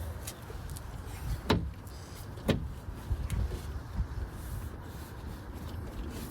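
Power window motor and regulator in a 2003 VW Golf MKIV front door running steadily as the glass is lowered. Two sharp knocks come about a second and a half in and again a second later.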